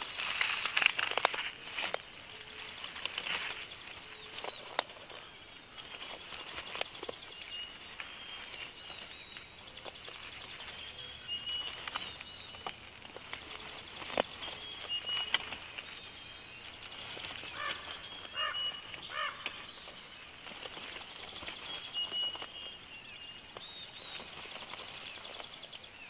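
A songbird singing the same short, high phrase over and over, every few seconds, a dawn song. Under it, scattered rustles and knocks of nest sticks as the bald eagle shifts on the nest, busiest in the first two seconds.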